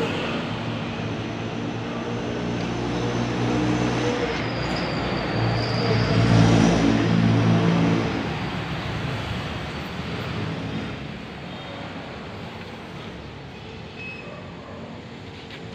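A motor vehicle's engine passing close by, growing louder to a peak about six to seven seconds in, then fading away into a quieter background traffic noise.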